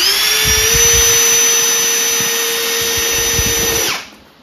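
Cordless drill driving a screw through a corner piece of a poly beehive box: the motor winds up in pitch over the first half-second or so, runs steadily for about three seconds, then stops suddenly.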